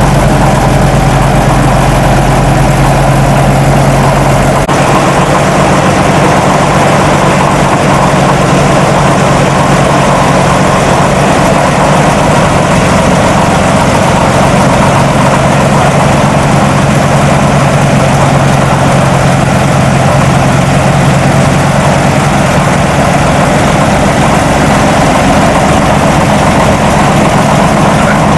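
Heavy vehicle engine running steadily, loud and constant; a deep low rumble beneath it drops away about four and a half seconds in.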